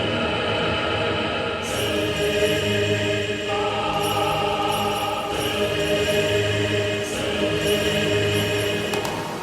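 Background music with long held notes and a choir.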